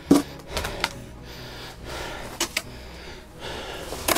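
A man's short, sharp breath just after the start, then a few light clicks and knocks as he handles gear in a small space.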